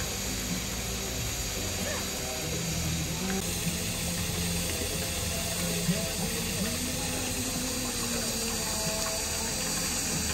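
Indistinct murmur of voices over a steady hiss.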